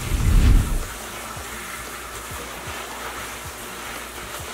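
Kitchen faucet water running and splashing over napa cabbage held in a metal colander as the leaves are rinsed, with a low thump in the first second.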